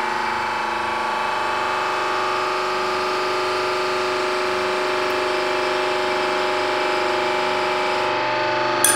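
Pump pressurizing a deep-sea pressure chamber, running steadily with a hum of several tones as the pressure climbs past 160 bar. A short sharp click near the end.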